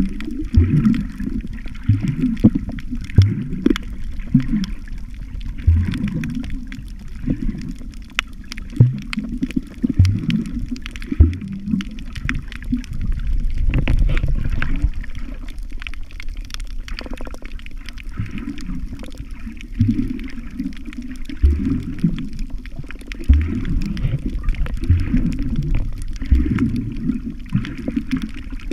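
Muffled water sloshing and gurgling, as heard by a camera held underwater while snorkeling. The sound is deep and churning, with irregular low thuds and gurgles.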